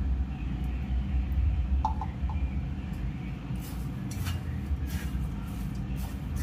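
Dry poha chivda being stirred with a spoon and tossed by hand in a steel bowl: a few small clicks about two seconds in, then crisp rustling strokes from about halfway through. A steady low rumble runs underneath.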